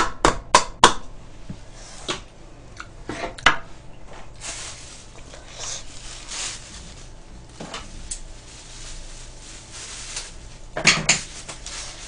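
A small container is tapped against a wooden spatula over a griddle pan, giving four quick knocks in the first second. Scattered clicks and knocks of kitchen utensils and dishes follow, with a stretch of soft noise in the middle.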